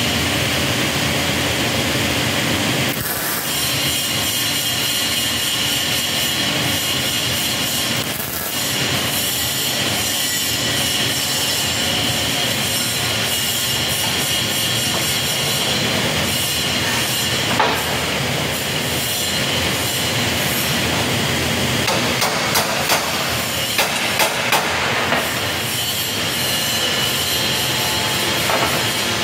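Steady mechanical din of a steel fabrication shop, with a high whine over a low rumble. A handful of sharp metal knocks comes about two-thirds of the way through.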